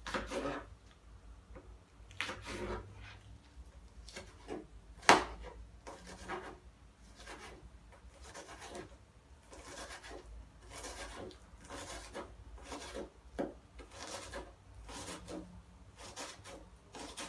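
Knife chopping onions on a cutting board: short, uneven strokes roughly one or two a second, with one sharper, louder knock about five seconds in.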